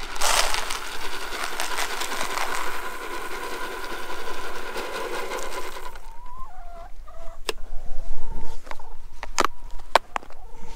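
Chicken feed poured from a plastic scoop into a plastic trough feeder, a steady rattling hiss for about six seconds that stops suddenly. Then chickens clucking, with a few sharp plastic clicks as the feeder's lid is fitted on.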